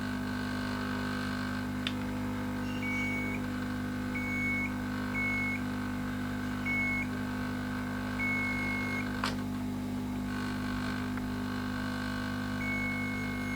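Multimeter continuity beeper sounding six times in short beeps of varying length as the probes touch MOSFET pins that are joined: the drain/source pins are well soldered to the board. Two sharp clicks of the probe tips are heard, over a steady low hum.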